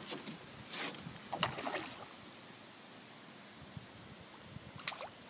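Faint water lapping and trickling around a small boat, with a few brief sounds in the first two seconds and another short one near the end.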